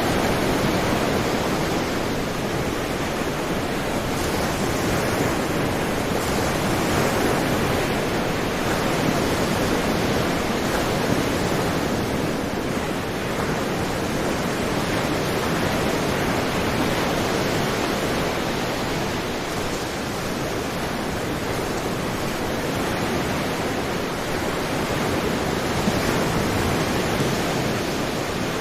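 Sea waves washing continuously, a steady rushing noise that swells and eases only slightly.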